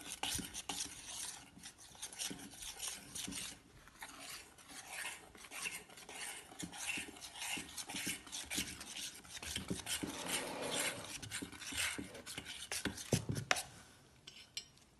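A spoon stirring pancake mix and milk in a bowl, scraping and clinking against the bowl in quick, irregular strokes. It dies away in the last second.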